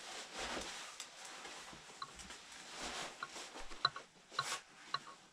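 Fabric rustling of a padded winter jacket being handled and worn, followed in the second half by a run of small sharp clicks.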